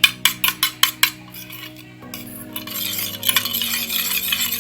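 A spoon clinking quickly against a cup of milk, about six clinks a second for the first second, then a steady scraping stir from about halfway on as powders are mixed into the milk.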